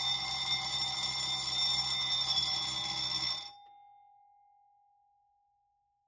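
Simplex 2901-9723 6-inch fire alarm bell ringing continuously in alarm, set off by the activated smoke detector. It cuts off abruptly about three and a half seconds in, leaving one clear tone from the gong that fades away over the next couple of seconds.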